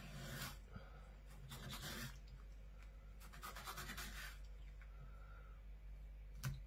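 Knife blade scratching through the rough skin of a dogfish as it is cut behind the head, in about three short faint strokes, with a sharp tap near the end.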